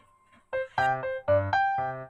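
Background music played on a piano-like keyboard: a brief pause, then notes resume about half a second in at roughly four notes a second.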